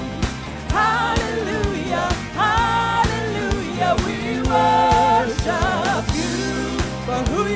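Gospel praise song: a woman and two men singing together into microphones in sustained, bending phrases, over instrumental accompaniment with a steady beat.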